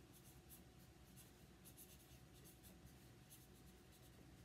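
Marker writing on paper: faint, quick, irregular pen strokes scratching across the sheet.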